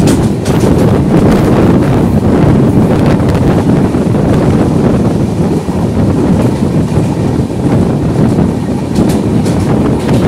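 Two passenger trains passing each other on adjacent tracks: a loud, continuous rumble of wheels on rails, heavily buffeted by wind on the microphone, with a few sharp clicks about nine seconds in.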